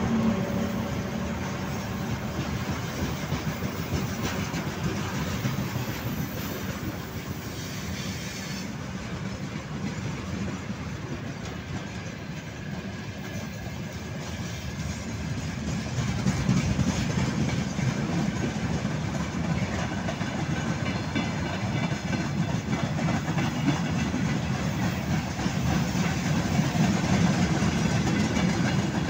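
Freight wagons (tank car, flatcars and open wagons) rolling past close by: a steady rumble of steel wheels running on the rails, growing louder a little past halfway through.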